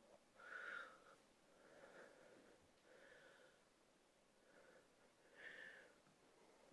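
Near silence with a few faint breaths from a woman exercising; the two clearest breaths come about half a second in and about five and a half seconds in.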